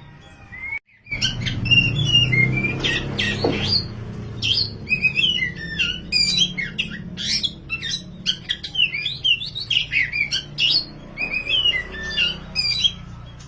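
Black Oriental magpie-robin (kacer wulung) in full, excited song: a fast, unbroken run of varied whistled notes sliding up and down, over a steady low hum. The sound drops out briefly about a second in before the song starts.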